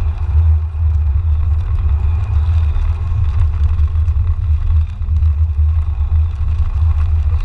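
Steady low rumble inside a car driving on a snow-covered road, from engine, tyre and wind noise.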